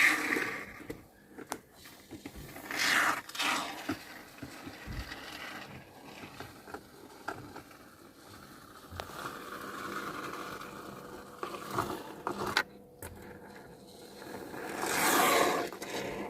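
Scraping and rubbing on the rusted van floor during the hole repair, coming in several separate bouts, the longest near the end.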